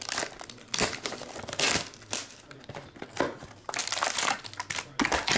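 Wrapping and cardboard of a Panini Obsidian basketball card box being torn open and handled: irregular crinkling and rustling in quick bursts.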